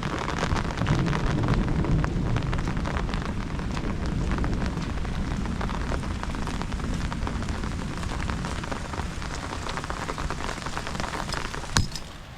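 Heavy rain falling in a dense patter of drops, with a low rumble of thunder strongest in the first few seconds. One sharp tap of a drop or object stands out near the end, and the rain is a little quieter right after.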